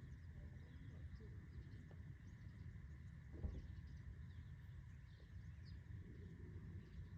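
Near-silent outdoor ambience: a steady low rumble with faint bird chirps, and one soft thump about three and a half seconds in.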